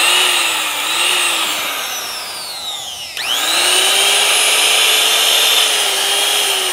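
Makita M3700 palm trimmer (trim router) running with no load, a high motor whine. It slows down, is switched on again about three seconds in and comes straight back up to speed, then begins to slow again at the very end.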